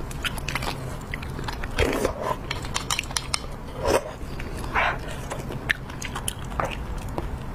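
Close-miked eating: wet sucking and chewing as marrow is eaten from a braised beef bone, with small clicks and scrapes of a knife against the bone. The loudest sucking sounds come about two, four and five seconds in, over a steady low background hum.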